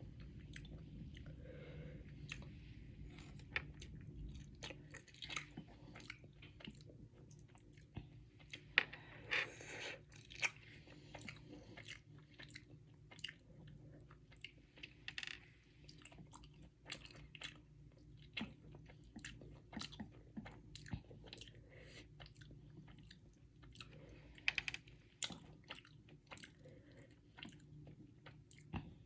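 A person chewing Samyang carbonara instant noodles: wet mouth clicks and smacks, with louder clusters of bites and chews about nine to ten seconds in, around fifteen seconds, and again near twenty-five seconds.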